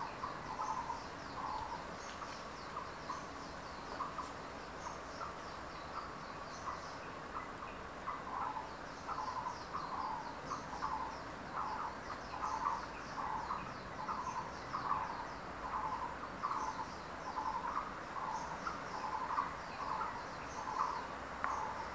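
Forest birds calling: one bird repeats a short note over and over, roughly one or two a second, stronger in the second half, with higher chirping above it. A thin, high, steady insect-like whine runs alongside and stops about ten seconds in.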